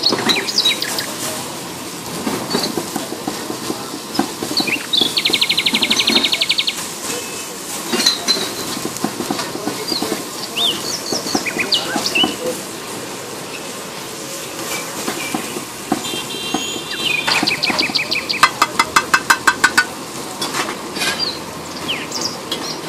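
Steel chopper striking a flat iron tawa as an egg mixture is chopped in oil: scattered clanks, with two runs of fast, evenly spaced metal-on-metal strikes, about a quarter of the way in and again near the end, where the hits are loudest.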